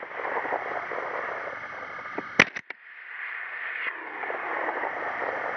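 A single rifle shot, a sharp crack about two and a half seconds in, from a Bushmaster ACR in 6.8 SPC fired at a hog, over a steady hiss.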